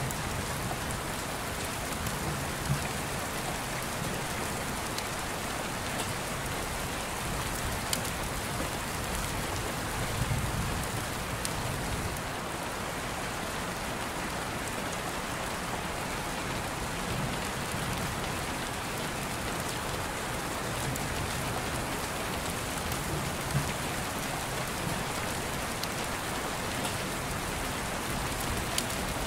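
Steady rain falling, with a few faint clicks scattered through it.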